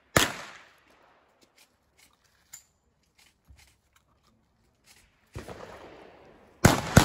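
Gunshots from a shouldered long gun: one shot just after the start, a few light clicks and rattles in the gap, then a duller bang a little after five seconds and two loud, sharp shots in quick succession near the end.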